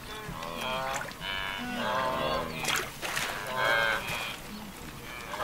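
Wildebeest calling: a run of short, nasal, lowing grunts, several animals overlapping, each call about half a second long.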